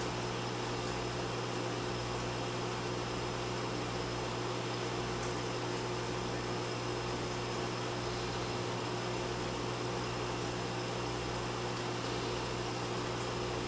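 Steady low hum with a constant hiss from running reef-aquarium equipment such as pumps, unchanging throughout.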